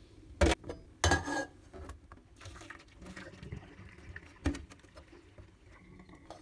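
Hot cooking water being poured off boiled potatoes into a stainless steel sink, with a glass lid held over the pot. Sharp clanks of pot and lid against the sink about half a second in and again near the end, with bursts of splashing water between.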